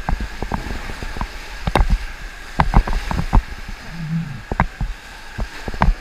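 Whitewater rapids rushing around a paddled raft, a steady wash of water broken by frequent sharp splashes and knocks.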